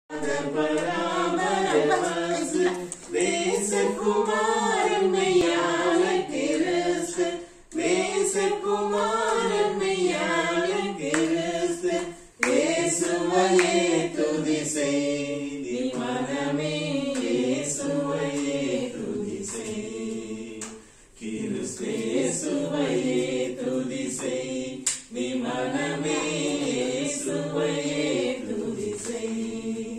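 A group of voices singing together without instruments, a song in long phrases with brief pauses every few seconds.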